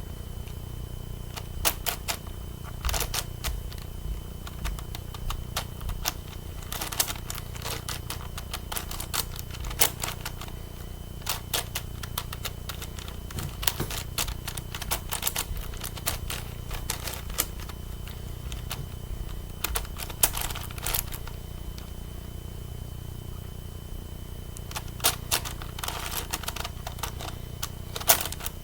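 Plastic clicking and clacking of a 9x9 Rubik's cube as its layers are turned, in irregular quick flurries of sharp clicks with short pauses between them.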